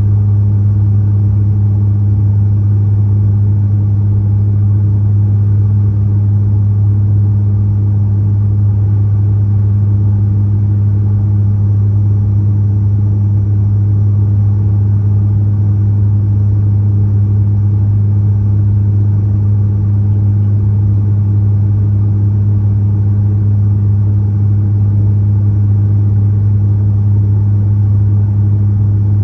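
Steady low drone of a De Havilland Canada Dash 8 Q400's Pratt & Whitney PW150A turboprops and six-bladed propellers, heard inside the cabin beside the wing. It is a strong, even hum with a fainter overtone above it.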